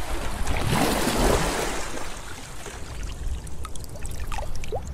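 Water trickling and splashing, growing quieter about halfway through, with a few short rising blips near the end.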